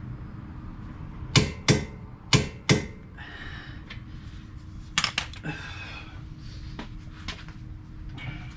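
Hand tools being handled: four sharp metallic clinks in pairs, then rattling and scraping and another quick cluster of clicks about five seconds in.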